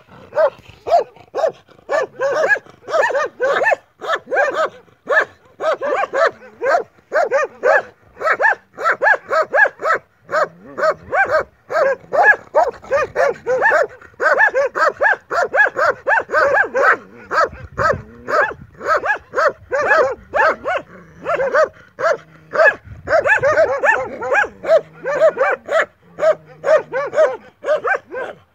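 Several stray dogs barking loudly and without let-up, their short barks coming several a second and overlapping one another.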